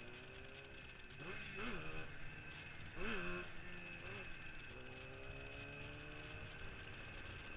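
Yamaha RD400's two-stroke twin engine, with three quick throttle blips in the first half, each rising and dropping back in pitch, then running steadily with the pitch creeping up slowly.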